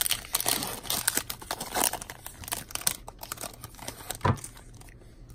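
Shiny foil wrapper of an Upper Deck X-Files trading card pack being torn open and crinkled by hand: a rapid run of crackles for about three seconds, with one sharper crack a little past four seconds, then quieter rustling as the cards come out.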